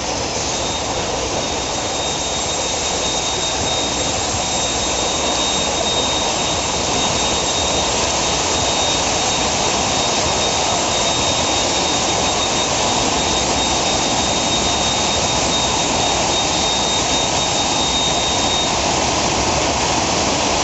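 Dive-pool sparger running: air driven up through the water, a loud steady rushing hiss. A thin, high steady whistle runs over it from just after the start until near the end.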